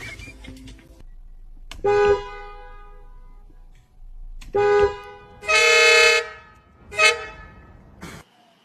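Car horn honking four times at one steady pitch: a short honk about two seconds in that rings on and fades, another short one near the middle, a longer held honk just after, and a brief toot near the end.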